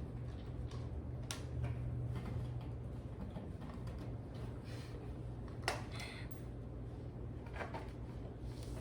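Scattered light clicks and knocks from cat tree parts being handled and screwed together by hand, the sharpest about five and a half seconds in, over a steady low hum.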